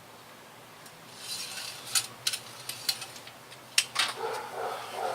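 A few sharp, light metallic clicks and rattles with some scraping between them, from parts being handled by hand; about four distinct clicks.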